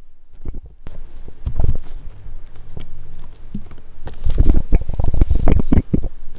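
Kittens scuffling in a woven cat house, their fur and bodies brushing and bumping right against the microphone: a run of rubbing noise and dull knocks, loudest and busiest about four to six seconds in.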